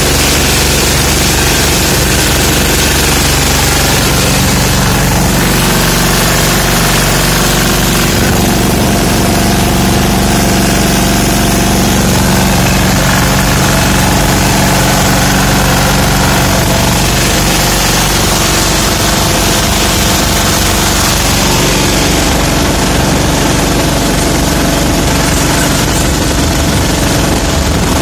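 Escort Steeltrac 15 hp mini tractor's diesel engine running steadily under way at road speed. The sound is loud, with vibration and rattle, as heard from the driver's seat.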